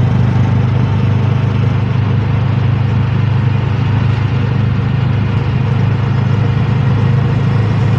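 A steady, loud low engine drone running at an even pace.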